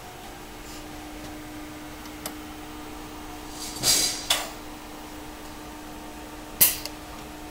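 Weldlogic 6100 automatic TIG welding lathe at work: a steady hum, with short hissing bursts about four seconds in and a sharper, louder one near the end.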